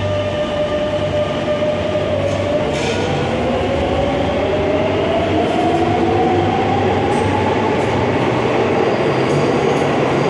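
Madrid Metro Line 10 train pulling out of the station. Its traction motors whine, rising in pitch from about four seconds in as it gathers speed, over steady wheel-on-rail rumble with a few sharp clicks.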